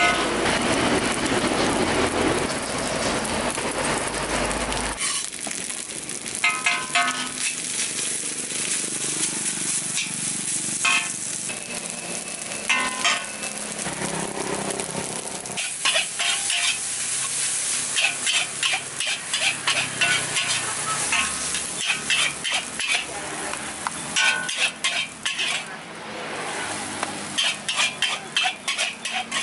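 Fried rice being stir-fried in a black steel wok: a metal spatula scraping and clanking against the pan in quick irregular runs of strokes over the sizzle of rice and vegetables. A louder rushing noise covers the first few seconds.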